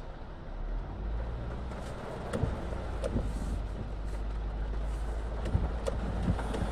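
Hyundai Grand i10 engine running with a steady low drone that rises a little about a second in, with a few faint taps on top. The mechanic says this noise could come from a crankshaft bearing shell, since the oil pressure light takes about seven seconds to go out.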